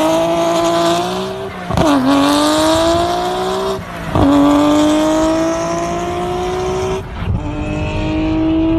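Engine accelerating hard through the gears. Its pitch climbs steadily and drops sharply at each shift, about two, four and seven seconds in.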